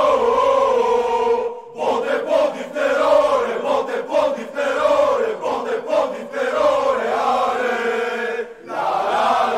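Crowd of football supporters singing a terrace chant in unison, many voices carrying one melody, with short breaks between phrases about two seconds in and near the end.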